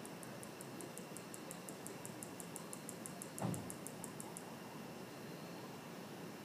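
Male greater katydid calling: a rapid series of sharp, high-pitched ticks, about six a second, its mating call, which stops about four and a half seconds in. A single low thump comes about three and a half seconds in.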